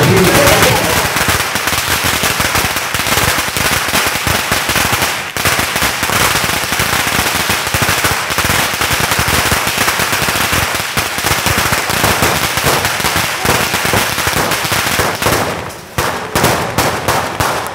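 A long string of firecrackers going off in rapid, continuous crackling, breaking into separate, spaced pops near the end.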